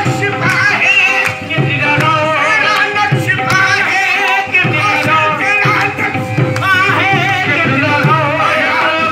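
Devotional singing in the qawwali style: voices sing a wavering, ornamented melody over a steady held drone, with hand-drum beats underneath.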